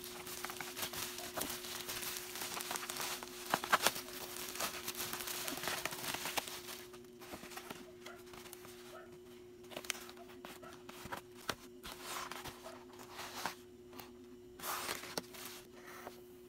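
Packing materials crinkling and rustling as they are handled, with a few sharp clicks about four seconds in. The rustling is dense at first, then thins to scattered handling noises, over a steady low hum.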